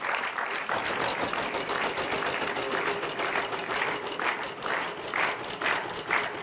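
Game-show prize wheel spinning, its pointer flapper clicking against the pegs in a rapid rattle that slows to single clicks as the wheel loses speed.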